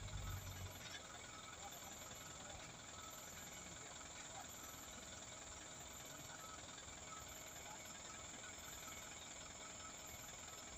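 Faint diesel engine of a loaded light dump truck running as it climbs a slippery mud slope, with a louder low rumble in the first second.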